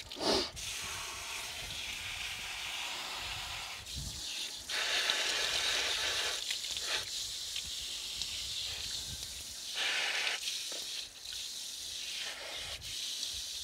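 Garden hose spray nozzle hissing as it sprays water onto the soil of potted vegetable plants. The hiss swells and dips as the spray is moved, loudest for a couple of seconds about five seconds in and again briefly around ten seconds.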